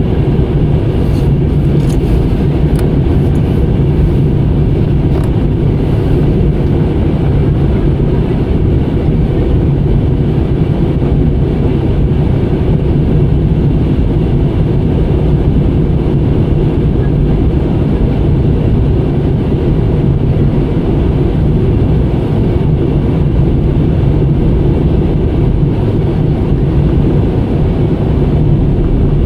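Airliner cabin noise in flight: a steady, loud, low rumble of engines and airflow, with a few faint clicks in the first few seconds.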